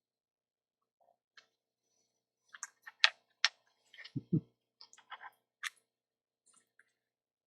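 Scattered sharp clicks and taps of small hard parts being handled, the loudest two about three seconds in, followed just after four seconds by two dull knocks.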